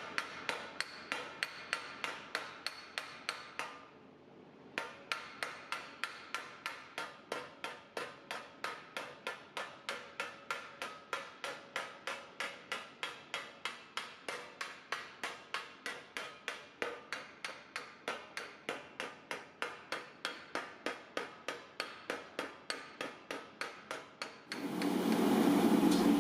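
A hand hammer strikes a sheet-metal fender panel resting on a sandbag, about three blows a second with a brief pause about four seconds in, smoothing the panel from the outside in. Near the end the hammering stops and a louder steady noise comes in.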